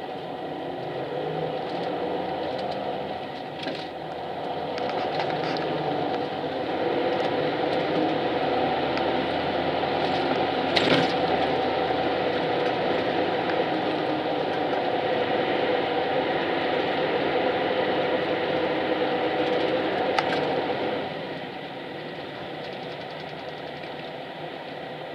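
Bus engine and road noise heard from inside the passenger cabin, with a steady whine. It grows louder a few seconds in, there is a brief knock about halfway, and it drops off a few seconds before the end.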